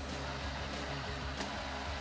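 Cordless impact driver running steadily, driving a self-tapping screw into a pre-drilled hole in a metal bracket.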